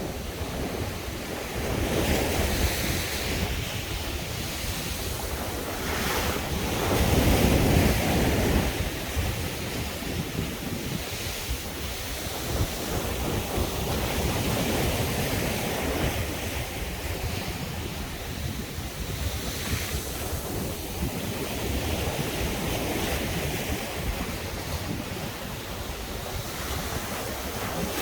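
Sea waves breaking and washing onto the shore in rolling surges, with wind rumbling on the microphone. The loudest surge comes about seven to eight seconds in.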